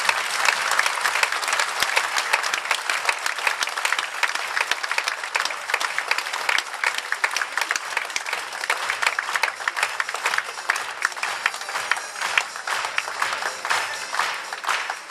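Large audience applauding: dense, steady clapping with no break, and faint music underneath.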